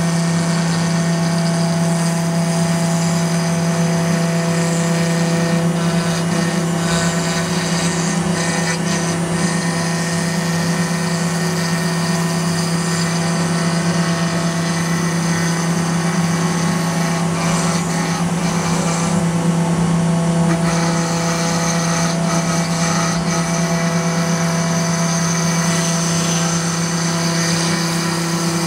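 CNC router spindle running steadily while its bit carves a groove profile into a wooden door panel: a constant hum with the rasp of the cut over it.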